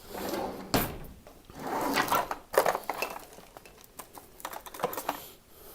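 Handling noise: a run of clicks and knocks with rustling in between, the sharpest knocks about a second in, halfway through and near the end.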